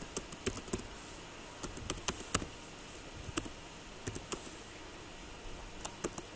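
Computer keyboard keys being typed: faint, irregular clicks of single key presses as an email address is entered.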